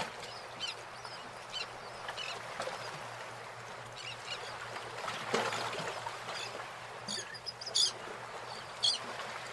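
Small birds chirping, short high calls repeated every second or so over a steady outdoor background hiss, the loudest chirps near the end.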